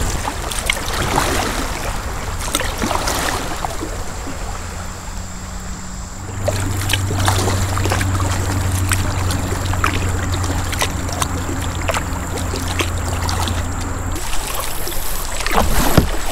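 Kayak being paddled: water trickling and dripping off the paddle blades with small splashes and clicks. A steady low hum comes in about six seconds in and stops near the end.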